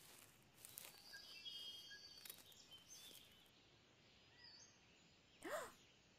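Faint outdoor nature ambience: a low steady hiss with scattered small bird chirps, and a short, louder sound about five and a half seconds in.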